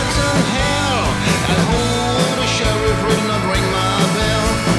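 Blues-rock band playing: electric guitars over a drum kit and keyboard, with notes sliding up and down in pitch about a second in.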